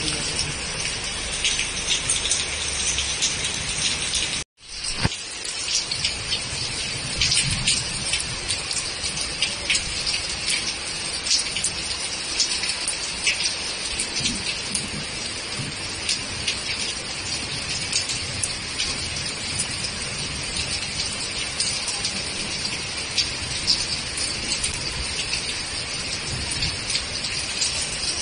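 Heavy rain pouring steadily, with many sharp drop hits on nearby surfaces. The sound drops out abruptly for a moment about four and a half seconds in, then the rain resumes.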